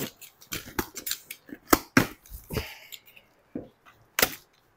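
Box cutter slicing the packing tape on a cardboard carton: a run of sharp clicks and cardboard crackles, with a short scraping slice about two and a half seconds in.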